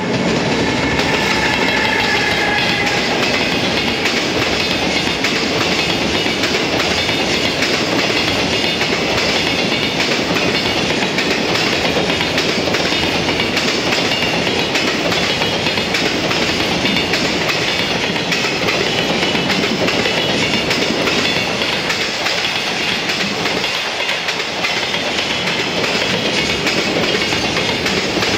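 A long JR Freight container train passing close by: a steady, loud rumble and clatter of the container wagons' wheels running on the rails, with a faint high whine in the first few seconds.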